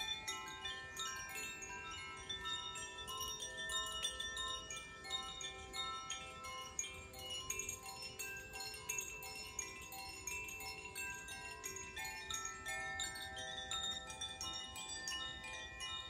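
Koshi chimes, bamboo tubes with tuned metal rods inside, rocked by hand so their clappers keep striking: a continuous shimmer of many overlapping ringing notes.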